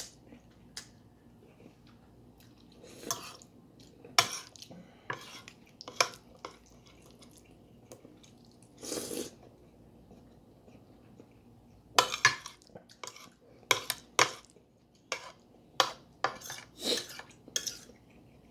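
Eating utensils clinking and scraping against a plate: irregular sharp clicks, sparse at first, with one longer scrape about halfway through and quick runs of clicks in the last several seconds.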